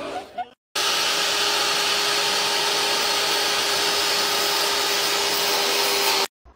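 Electric circular-blade slicer running as its spinning blade cuts down through a hamburger: a loud, steady motor whine with a hiss, which cuts off abruptly near the end.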